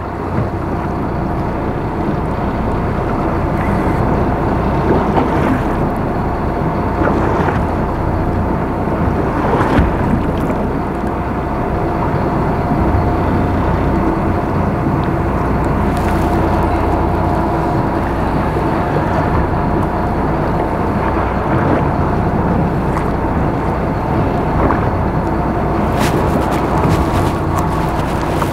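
Boat's engine running steadily at idle while the boat drifts, with wind buffeting the microphone. A few sharp clicks near the end.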